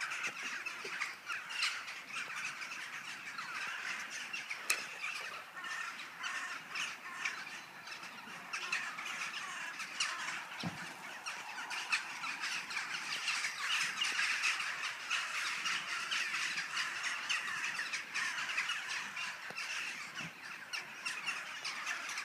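A rook colony: a large flock of rooks cawing together in a dense, continuous chorus of overlapping calls.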